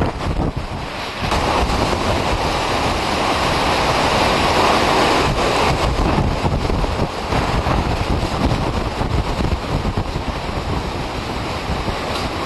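Hurricane-force wind gusting with wind-driven rain, heavy wind buffeting the microphone. The wind picks up about a second in and stays strong, easing slightly near the end.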